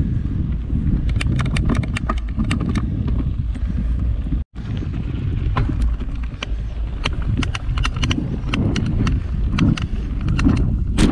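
Calibre Bossnut V2 mountain bike riding a dirt forest trail, heard from a handlebar-mounted GoPro: a steady low rumble of wind and tyres, with frequent sharp rattles and clicks from the bike over bumps. The sound drops out for a moment about four and a half seconds in.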